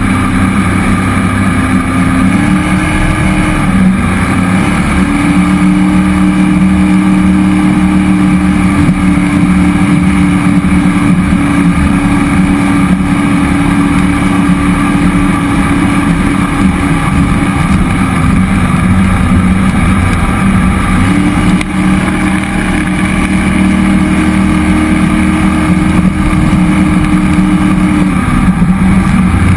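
Cammed 5.3L LS V8 in a jet boat running under way, its pitch stepping up and down several times as the throttle changes: up about two seconds in, easing off near the middle, climbing again later and dropping back near the end. Under it runs a steady rush of water and wind.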